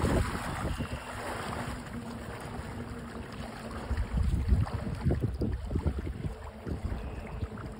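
Waders splashing through shallow river water at the start, then irregular gusts of wind on the microphone over the steady wash of the river.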